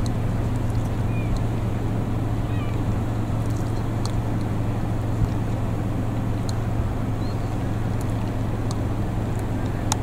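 A few short mewing calls of gulls over a steady low hum that runs throughout, with faint scattered clicks.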